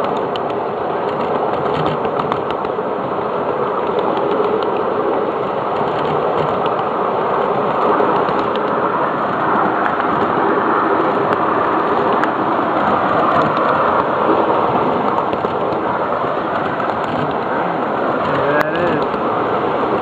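A 7.5 inch gauge ride-on miniature train running along its track, with a steady rumbling noise of the wheels on the rails.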